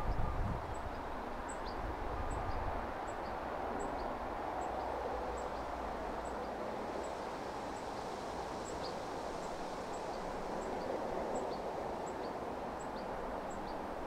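Steady outdoor hiss, with a faint, high-pitched tick repeating evenly about every three quarters of a second.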